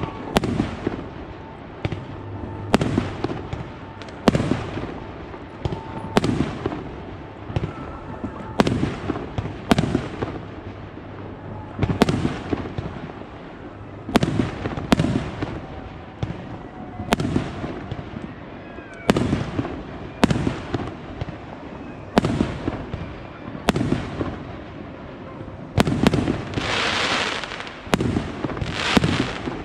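Fireworks display, with shells bursting in a steady run of sharp bangs about once a second, each trailing an echoing rumble. Near the end a louder hissing crackle joins the bangs.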